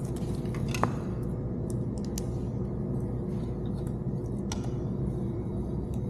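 Scattered sharp clicks and light rustling of small radio mounting hardware being handled, with one louder click about a second in, over a steady low hum.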